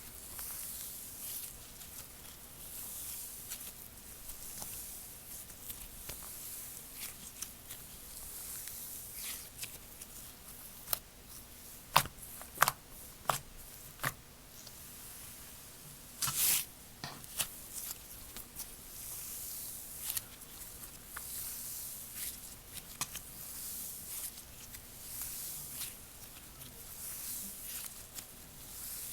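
Hands squishing, stretching and poking slime, with a soft crackly sticky sound that swells and fades. There are several sharp pops a little before the middle and a short louder squelch just past it.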